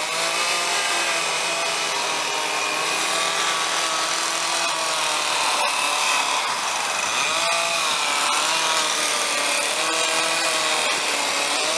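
Chainsaw running and cutting wood for carving, its engine pitch dipping and rising as the throttle and load change.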